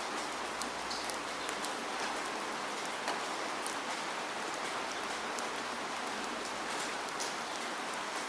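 Steady rain falling, a constant hiss with many individual drops ticking sharply on top.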